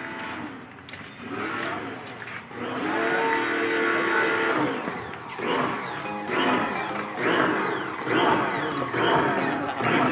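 Background music: held notes at first, then a pulsing pattern about once a second through the second half.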